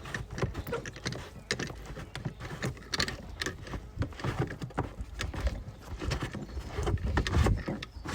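Irregular clicks and knocks of pipe fittings being handled as the spa pump's pipe connections are undone and the pump is pulled free of the tub, with heavier low thumps near the end.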